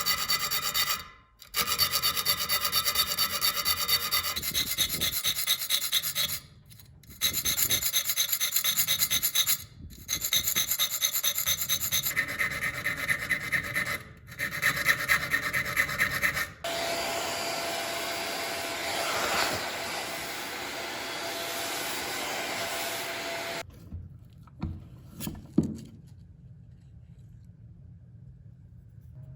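Rubbing, rasping hand strokes of abrasive work on the rusty steel blade of an old keyhole saw, in several stretches broken by short gaps. A little past halfway a smoother, steadier scraping with a faint hum takes over for several seconds. Then it falls to low background noise with a couple of knocks.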